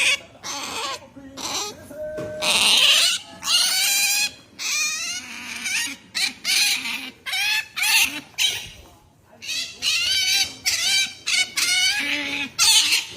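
Pet otter calling insistently in a long run of short, high-pitched squeaky calls, about two a second, many wavering in pitch: attention-seeking begging to be pampered.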